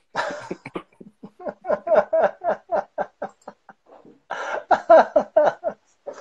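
Men laughing hard in a long run of quick, rhythmic ha-ha pulses, easing briefly about four seconds in and then breaking out again.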